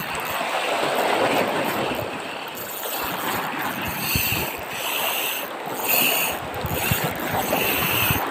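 Wind buffeting the microphone and waves slapping a small boat, with short whirring bursts of a Ryobi Ultra Power 800 spinning reel being cranked about once a second from about halfway through as a hooked fish is played on ultralight tackle.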